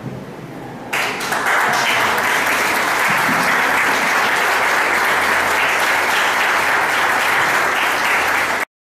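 Audience applauding. The applause starts about a second in, holds steady, and stops suddenly near the end.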